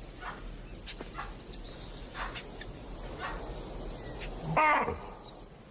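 Alarm calls from prey animals that have spotted a lion: short sharp barks repeating every half second or so, then one louder call that falls in pitch near the end.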